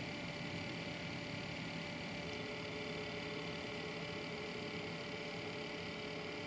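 Desktop PC's whiny fans and rattling Corsair H100 liquid-cooler pump running, a steady hum with several steady tones; another tone joins about two seconds in. The pump rattle is a complaint other owners of this cooler have also reported.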